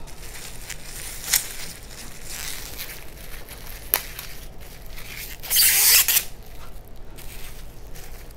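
Clear plastic wrapper being torn open and crinkled to free a plastic fork: a sharp click about a second and a half in and another about four seconds in, then a loud crackling tear lasting under a second, about five and a half seconds in.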